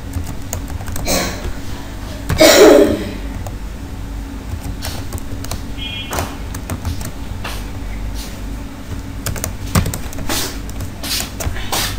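Computer keyboard keys being typed in short, irregular runs of clicks. About two and a half seconds in comes a short, loud vocal sound, the loudest moment.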